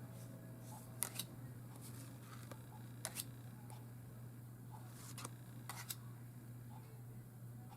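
Tarot cards being handled and flipped over one at a time, giving sharp card-stock clicks in close pairs about every two seconds, over a steady low hum.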